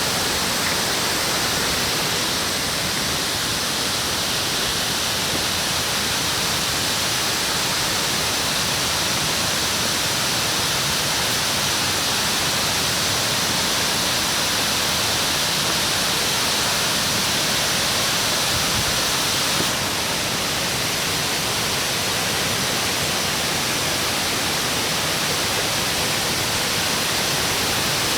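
Oshinkoshin Falls, a waterfall, with falling water making a steady, even rush of noise.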